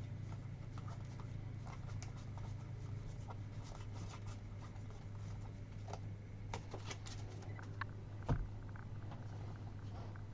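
Sports trading cards being handled and sorted through by hand: faint scattered clicks and rustles over a steady low hum, with a soft thump about eight seconds in.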